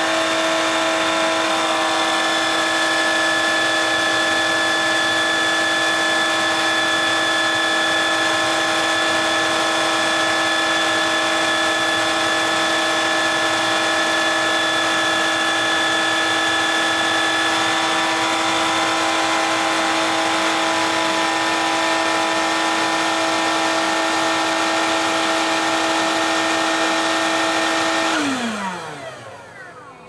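G-well Ventus Aqua Pro cordless wet vacuum cleaner running with a steady motor whine made of several fixed tones, its brush roller spinning on the wet floor. About two seconds before the end it switches off and the whine falls in pitch as the motor spins down.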